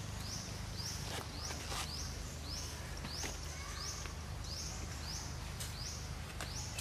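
Outdoor ambience: a small animal's high call repeats steadily about twice a second, each call rising in pitch, over a low steady rumble with a few faint clicks.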